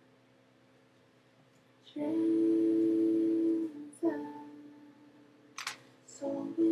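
A man humming held notes, a long steady one and then shorter ones, after a near-silent start. There are a couple of sharp clicks in between.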